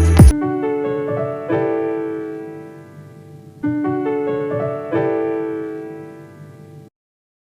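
The end of an instrumental track: the full mix with its heavy bass drops out just after the start, leaving a solo piano playing four sustained chords that each ring and fade. The sound cuts to silence near the end.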